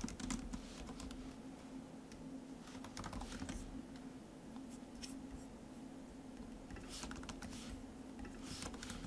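Computer keyboard typing: keys clicking in short, irregular runs as code is entered, over a faint steady low hum.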